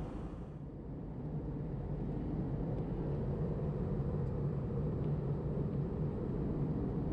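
Airbus A320 engines and airflow heard from inside the passenger cabin: a steady low rumble that grows louder over the first two seconds or so and then holds.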